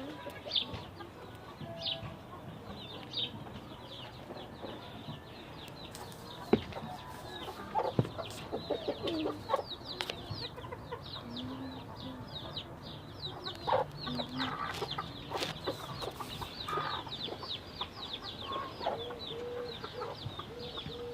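A flock of chickens: chicks peeping with constant short, high chirps while hens cluck, ending with a run of even, repeated clucks. A couple of sharp knocks stand out about a third of the way through.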